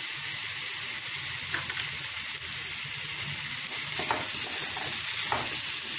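Button mushrooms sizzling in oil and masala in a stainless steel kadai while being stirred with a spatula: a steady frying hiss, with a few brief scrapes of the spatula against the pan.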